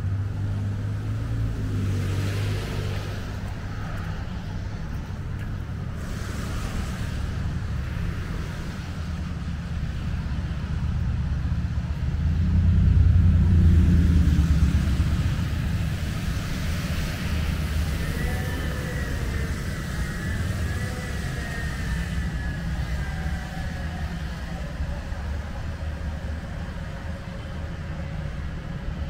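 Road traffic on wet pavement, a steady low rumble with one car passing close about halfway through, its tyres hissing on the wet road.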